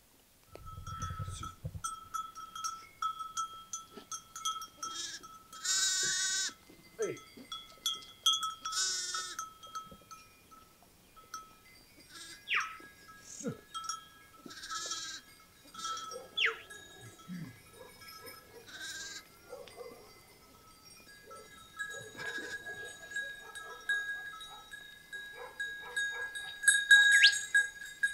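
Sheep and goats bleating, several wavering calls, the loudest about six and nine seconds in, over the light clinking of the flock's neck bells as the animals move and graze.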